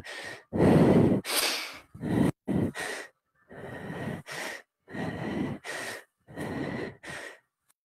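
A woman breathing hard in and out from exertion, a steady run of short, sharp breaths roughly one a second.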